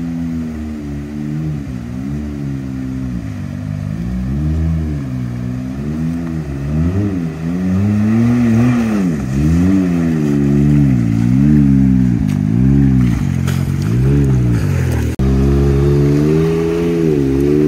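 Can-Am side-by-side's engine revving up and down over and over as it works through a creek crossing, the pitch rising and falling about once a second. About fifteen seconds in the sound cuts to a steadier, louder engine note close by.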